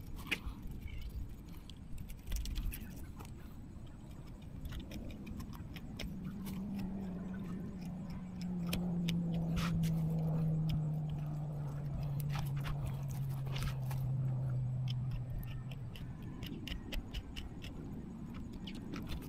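Knife clicking and scraping against a plastic cutting board while filleting a porgy. Through the middle a passing engine hums, its pitch sliding slowly down before it fades.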